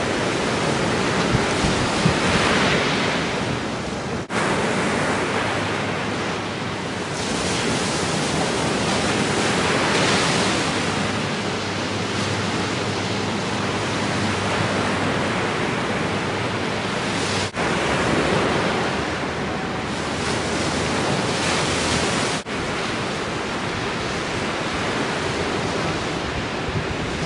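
Ocean surf: waves breaking and whitewater washing in a steady rush that swells and eases, with brief dropouts in the sound about 4, 17 and 22 seconds in.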